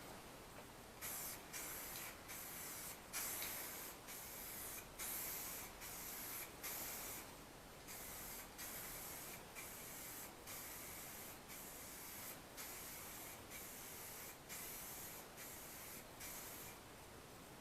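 Aerosol rattle can of car paint spraying in a string of short hissing bursts, roughly one a second with brief breaks between passes, laying down a coat of paint.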